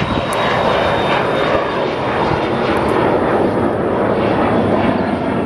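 Twin-engine business jet climbing out after takeoff: loud, steady jet engine noise, with a thin high whine that fades about four seconds in.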